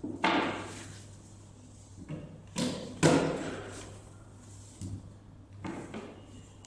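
Handling noise from a power cable and adapter being moved and set down on a cloth-covered table next to a small inkjet printer: a handful of knocks and clatters, the loudest about three seconds in.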